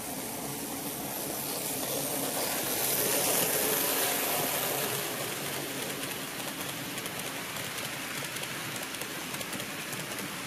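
HO-scale model train of old-type passenger coaches passing close by on the layout track, its wheels giving a rolling rush that swells to its loudest about three to four seconds in, then carries on steadily as the coaches roll past.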